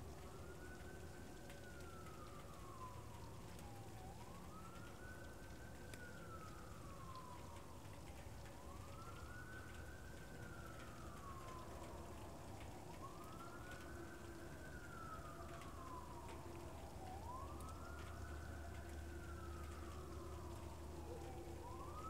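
A faint siren wailing. Each cycle rises quickly and falls away more slowly, repeating about every four seconds over a low steady hum.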